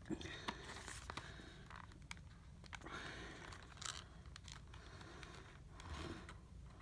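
Faint rustling and scraping of a cardboard retail box being handled and picked at to open it, with a few small clicks.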